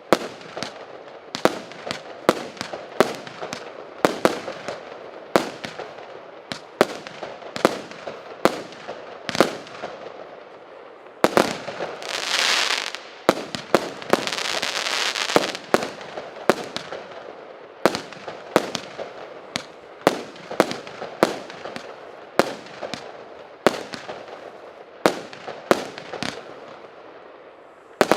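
66-shot, 0.8-inch consumer firework cake firing shot after shot in fan patterns, each launch a sharp report about one to two times a second with a short fading tail. A little before halfway two longer hissing stretches come from its whistling shots.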